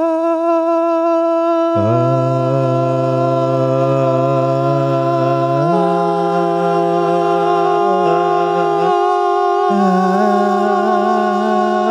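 Men's voices singing a cappella, holding long steady notes in an amateur attempt at harmony an octave apart. One voice holds a high note throughout, a lower voice joins about two seconds in, steps up in pitch near the six-second mark, breaks off briefly and comes back.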